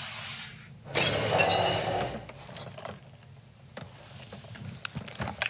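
A short noisy crash with a shattering sound about a second in, lasting about a second, after a brief fainter rush of noise at the start.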